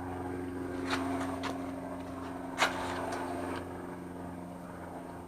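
A steady low mechanical hum, like a small motor or fan running, with a handful of light clicks and taps over it.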